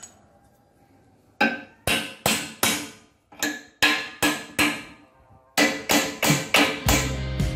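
Hammer blows on the upper mount of a coil-over shock absorber on a welded steel box-section frame: about a dozen sharp, ringing metal strikes in two runs, with a short pause in the middle. Background music comes in near the end.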